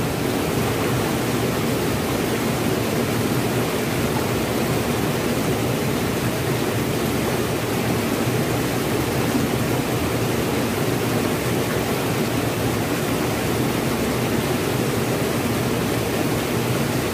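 Fast, muddy floodwater rushing past and over rocks in a swollen river: a steady, unbroken rush of water.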